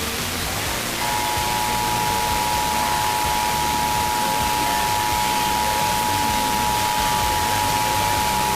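Emergency Alert System two-tone attention signal: a steady dual-tone alarm starting about a second in and holding unbroken over constant static hiss. It marks the start of a broadcast EAS test alert.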